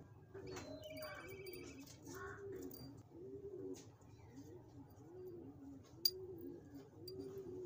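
A dove cooing over and over, a low soft note repeated steadily. A small bird chirps briefly about a second in, and there is one sharp click about six seconds in.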